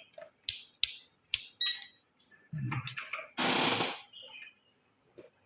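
Digital multimeter being set up by hand: three sharp clicks, like the rotary selector dial being turned to the voltage setting, with a short electronic beep. A loud half-second rustle or scrape of handling follows.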